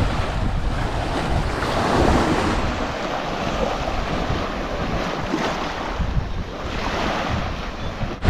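Wind buffeting the microphone over steady sea and surf noise, with a heavy low rumble.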